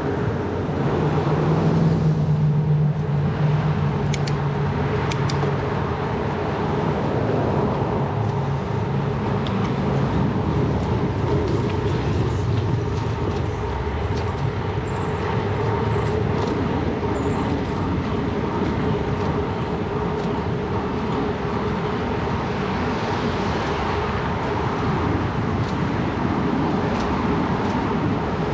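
Steady rolling noise of a Surly Bridge Club bicycle riding on paved road, tyre and wind noise on the action camera's microphone, with motor traffic around; a low engine hum stands out in the first few seconds.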